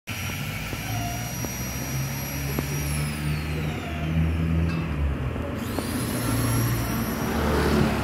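Motor vehicle engine running with a low, uneven rumble, and a high whine that falls in pitch about three seconds in and another that rises again just after the middle.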